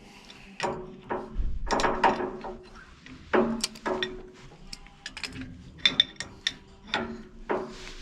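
Hand tools knocking and clinking against metal heating pipework: an irregular string of sharp metallic knocks, several of them ringing briefly.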